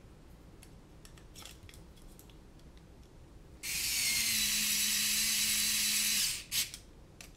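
Cordless electric screwdriver running steadily for about two and a half seconds, starting a few seconds in, as it drives a screw into a drone frame. Light clicks of handling come before and after the run.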